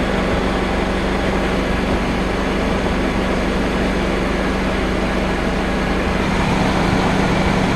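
2004 Mercedes C230's 1.8-litre four-cylinder engine idling steadily with the AC system running, a constant hum under the hood while the refrigerant is charged.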